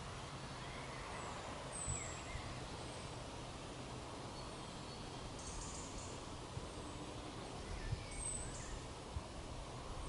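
Forest ambience: a steady low background rumble with a few thin, high bird calls, including two brief high falling whistles about two seconds in and again near eight seconds.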